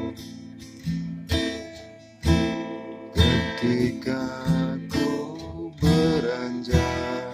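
Background music: an acoustic guitar strummed in a steady rhythm, about one strum a second.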